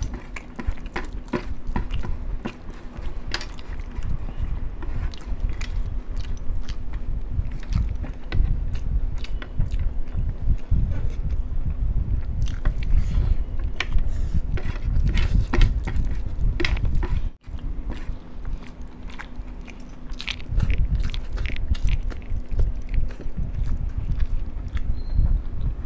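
Close-up chewing of masala rice eaten by hand, with many small mouth clicks. A steady low hum runs underneath.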